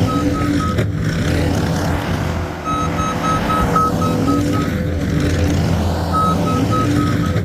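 New Holland C232 skid steer's diesel engine running under work while its backup alarm beeps, about four beeps a second, in three runs as the machine reverses.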